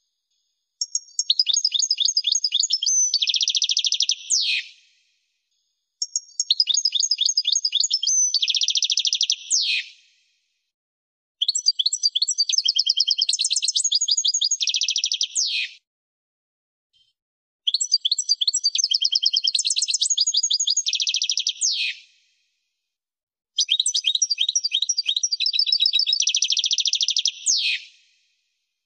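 European goldfinch song, a recording used to tutor young goldfinches. Five phrases of about four seconds each, with rapid high twittering trills and a buzzy run, each ending in a quick falling slur, separated by short silent gaps.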